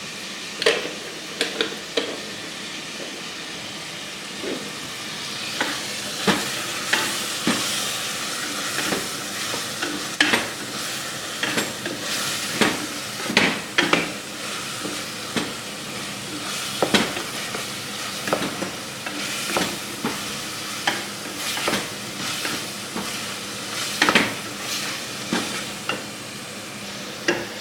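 Chicken masala (chicken, onion, tomato and ground spices) frying in a pan with a steady sizzle while it is stirred, the utensil scraping and knocking against the pan many times at an uneven pace. This is the bhuna stage, the spices being fried together with the chicken.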